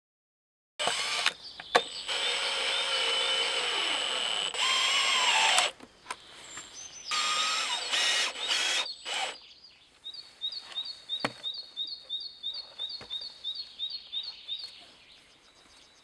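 Cordless drill running and boring into the end of a spruce log, its whine sagging in pitch under load about five seconds in, followed by several short trigger bursts. Then a small bird sings a rapid string of high two-note chirps, about three a second, for some five seconds.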